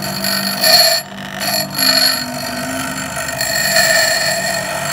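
Double-wheel bench grinder running, with a small steel rod held against its abrasive wheel, throwing sparks. The grinding hiss swells and eases several times as the metal is pressed on and lifted, over the motor's steady tone.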